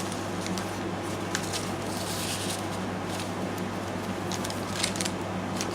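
Steady hum of a room air conditioner, with a few faint rustles and soft taps of paper as journal pages are handled.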